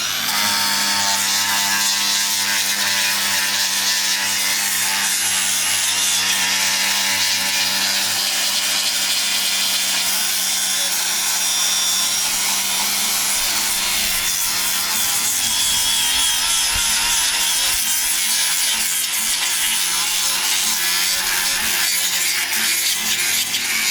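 Power sander running steadily, sanding wood with a continuous rubbing, grinding noise over a steady motor whine.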